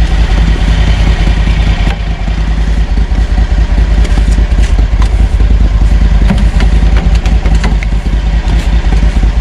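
Air-cooled Loncin 30 hp engine of a Krosh all-terrain vehicle idling steadily with an even pulse, warming up after a cold start in frost. A few light knocks come through around the middle.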